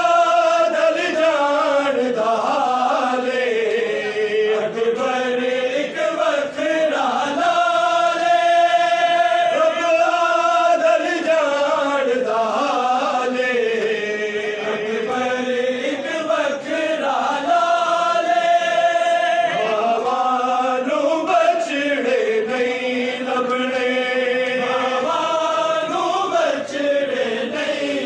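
A man reciting a noha, the Shia lament, sung into a microphone in long held notes, each phrase dipping in pitch and climbing back up.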